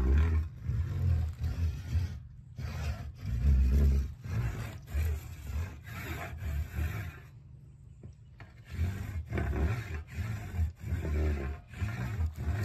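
Worm fiddling: a saw blade drawn back and forth across the top of a cut sapling stub driven in the ground, in repeated rasping strokes that set up a deep rumbling vibration in the wood and soil. The strokes pause briefly about halfway through, then resume.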